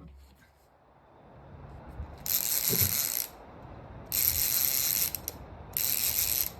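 Fishing reel being cranked in short spells, three bursts of about a second each of high-pitched clicking whir with pauses between, as a hooked fish is reeled in.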